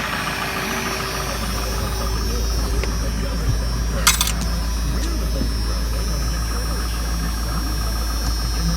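Car engine idling after a cold start: a steady low hum. There is a sharp click about four seconds in.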